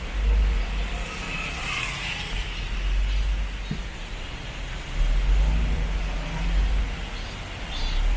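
Road traffic: cars passing, with a steady low rumble and one vehicle's tyre noise swelling and fading about a second or two in, plus a single short click near the middle.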